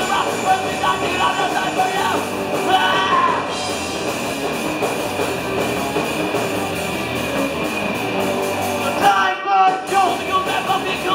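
Punk rock band playing live: distorted electric guitar, drums and sung vocals. The band stops briefly about nine seconds in, then the vocal comes back in.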